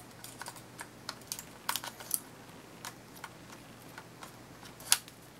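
Irregular small plastic clicks and taps as a battery is fitted into the Sony Cyber-shot HX50V's battery compartment and the compartment door is handled, with one sharper click near the end.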